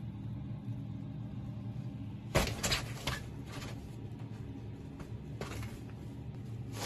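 A kitten pouncing on and pawing at a pop-up fabric play tent: a quick cluster of knocks and rustles about two and a half seconds in, and fainter scuffs a little later, over a steady low hum.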